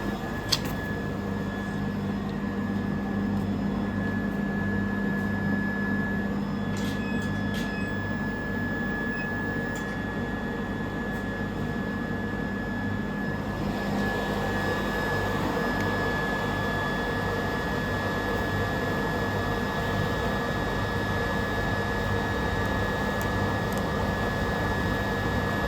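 Induction heater running with a steady hum and a thin high whine. A sharp click comes about half a second in, and about fourteen seconds in a hiss rises and stays.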